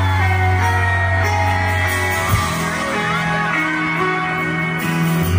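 Live band music through a concert sound system: strummed acoustic guitars over a deep held bass note that moves to a higher note about two and a half seconds in, with a few crowd shouts.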